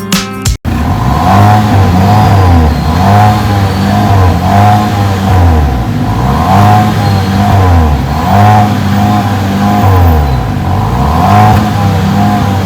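GAC GS3 Emzoom's 1.5-litre turbocharged engine being revved over and over, its pitch rising and falling with each blip, heard through the centre-mounted exhaust. A short stretch of music cuts off less than a second in.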